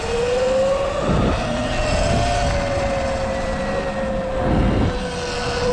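Sur-Ron X electric dirt bike's motor whining steadily at a gentle cruising speed, the whine rising slightly in pitch in the first second. Under it runs a low rumble that swells a few times.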